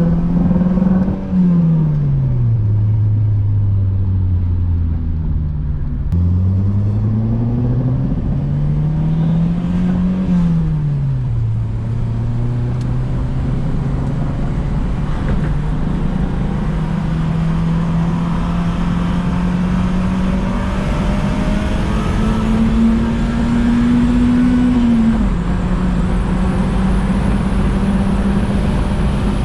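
Swapped Honda H22A 2.2-litre four-cylinder engine of an Accord wagon pulling through the gears on the road. The revs drop about a second in, climb again from about six seconds, drop near eleven seconds, then rise slowly and ease back a little near the end.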